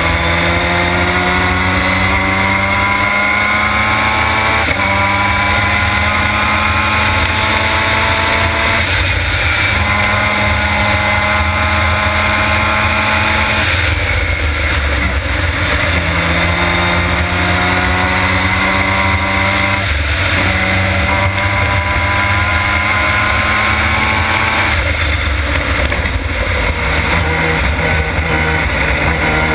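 Formula Mazda race car's Mazda rotary engine at full throttle, its pitch climbing steadily through the gears with several upshifts, and lifting off twice for corners, heard from onboard the car over steady wind and road noise.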